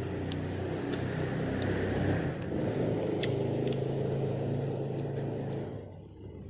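A motor vehicle's engine running with a steady low rumble that fades away near the end, with a few sharp small clicks over it.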